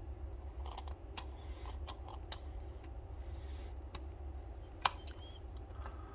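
Small clicks, taps and scrapes of hands working at a sealed plastic and cardboard box to get it open, with one sharp click about five seconds in, over a low steady hum.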